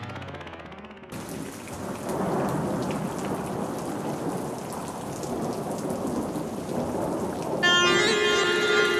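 Rain-and-thunder noise forming the intro of a music track. About a second in the noise swells up, and near the end a pitched melody of held notes enters over it.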